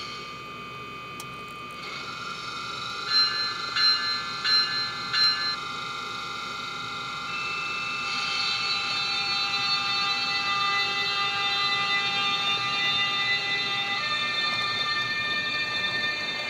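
Onboard sound of an HO scale Atlas NJ Transit ALP-45DP model locomotive running, a steady mechanical hum whose pitch steps up about halfway through and again near the end. A little after the start come four short horn blasts in quick succession.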